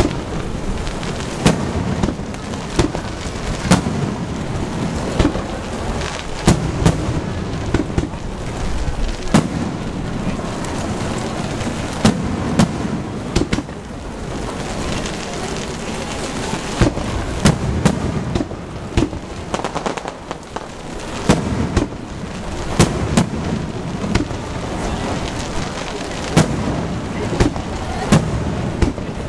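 Aerial firework shells bursting overhead in quick succession, a sharp boom every second or so with a short lull about halfway through, over a steady hiss of rain.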